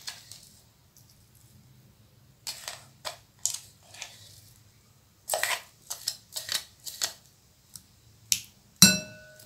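Plastic spatula scraping and tapping cooked rice out of a steel pot into a glass bowl: a run of short scrapes and knocks, ending about nine seconds in with a louder clink that rings briefly.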